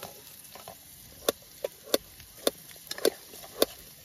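A metal utensil tapping and clinking against a small metal camping pot while stirring a broth of chopped shallots: sharp taps at irregular half-second spacing, starting about a second in.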